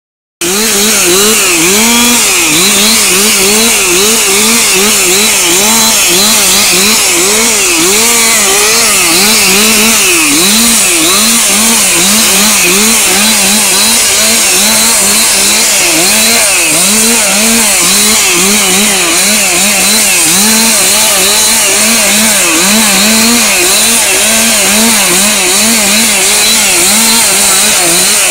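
Two-stroke chainsaw revving up and down in quick repeated bursts, two or three times a second, while delimbing a felled conifer trunk, lopping off branch after branch.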